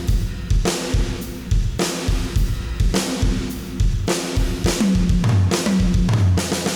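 Drum kit recording playing a steady beat of kick, snare and cymbals, a hit about every 0.6 seconds. The floor component is compressed in Dynamic Grading 2, bringing the room ambience up. Playback stops suddenly at the end.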